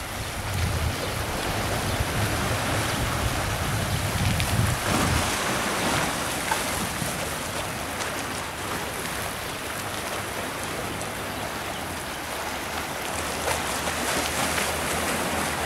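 Small sea waves washing and splashing over the rocks of a breakwater in a steady surf wash. Wind buffets the microphone as a low rumble over roughly the first five seconds.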